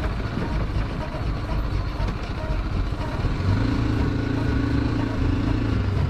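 BMW G 310 GS's single-cylinder engine running as the motorcycle rides along a dirt track; about three and a half seconds in, the engine settles into a steady drone.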